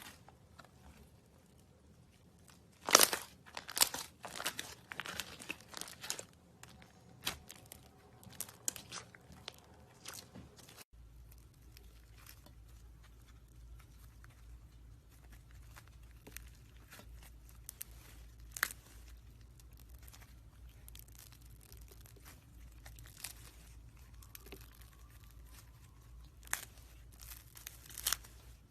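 Packaging or plastic being torn and crinkled in sharp, irregular crackling bursts, thickest in the first ten seconds and sparser after a low hum comes in about eleven seconds in.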